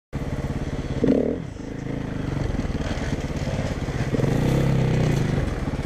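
Enduro dirt bike engine running under the rider, with a short blip of throttle about a second in, a brief drop, then the revs climbing again near four seconds.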